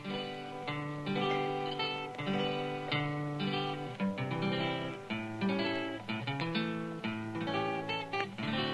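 Acoustic guitar played solo, a slow tune of plucked notes and chords, each ringing on into the next.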